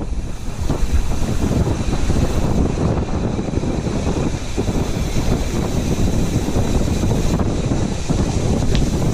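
Strong wind buffeting the microphone during a ride: a steady, loud low rumble.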